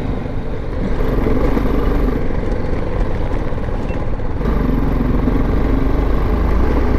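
BMW G 310 GS single-cylinder motorcycle engine running steadily while riding, with wind and road noise on the microphone. The sound shifts a little about four and a half seconds in.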